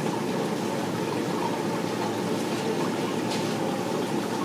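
Steady running and bubbling water of a live seafood tank's circulation and aeration.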